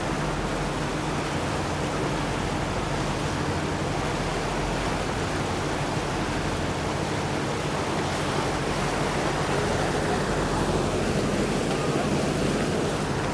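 Steady rush of wind and water with a low, even engine hum from a river tour boat under way.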